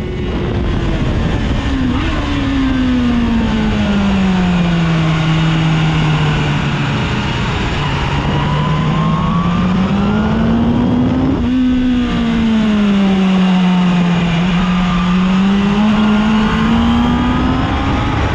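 BMW S1000RR inline-four engine heard from onboard at track pace, its revs sweeping slowly down and back up twice as the bike goes through the corners, with a quick jump in revs at about two seconds and a shift about two-thirds through. Steady wind rush runs under it.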